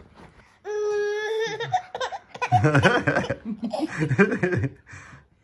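Laughter, a baby's giggles among it, in two stretches of several seconds, after one held high-pitched vocal sound about a second in.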